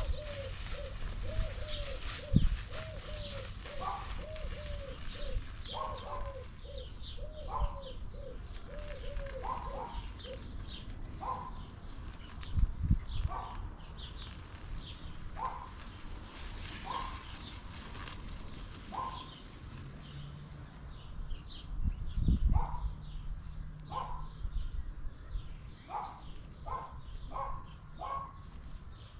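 Wild birds calling: a quick run of low, repeated notes over the first ten seconds, a short sharper call repeated every second or two, and scattered high chirps. Three dull thumps stand out over them.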